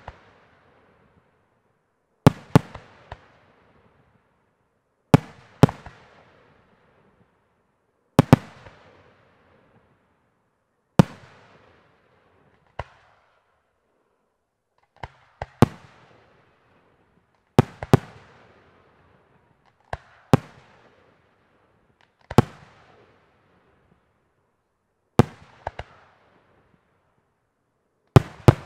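Aerial firework shells bursting in the sky one after another, a sharp bang about every three seconds, often followed closely by a second, smaller report, each trailing off in a fading echo.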